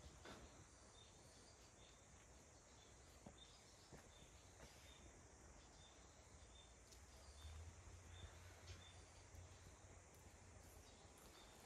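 Near silence: faint outdoor ambience, with a soft, high chirp repeating about every half second and a few faint ticks.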